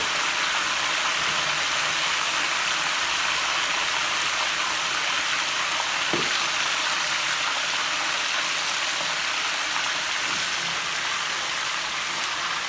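Food frying in hot oil in a frying pan: a steady sizzle.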